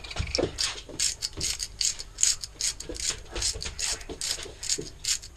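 Hand-twisted spice grinder grinding garlic seasoning into a bowl: a steady run of quick ratcheting clicks, several a second.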